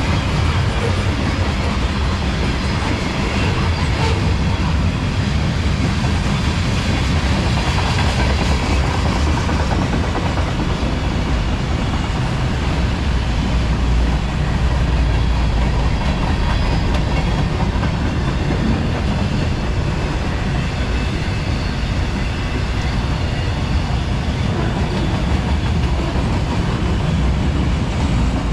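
CSX freight train rolling past, a steady loud rumble of wheels on the rails that runs on without a break.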